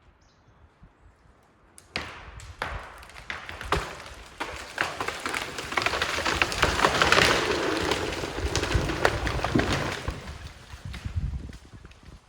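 A tree giving way and crashing down. Irregular sharp cracks of snapping wood and branches start about two seconds in, build into a long rushing crash through the branches, and die away near the end.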